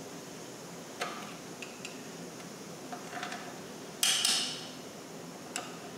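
Short metallic scrapes and clinks of a hand tool working at bolt holes in the rusty Model T transmission cover: a sharp scrape about a second in, a louder one about four seconds in, and lighter ticks between.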